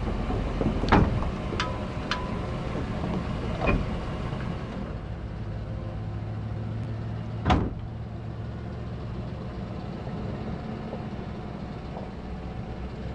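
Truck engine running steadily while pulling on a line, broken by a few sharp knocks, the loudest about halfway through.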